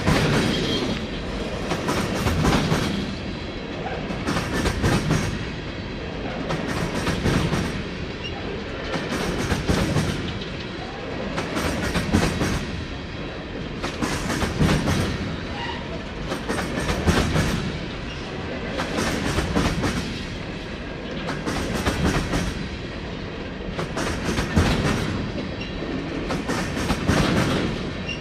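Empty coal cars of a freight train rolling past, with a steady rumble and a burst of clickety-clack about every two and a half seconds as each car's wheels cross a rail joint.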